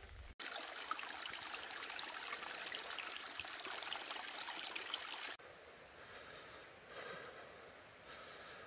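A small mountain creek babbling steadily. About five seconds in it cuts off abruptly to a fainter, steady outdoor hush.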